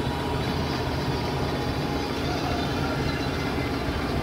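Diesel engine of a tracked rice combine harvester running steadily as the machine creeps forward onto a steel loading ramp.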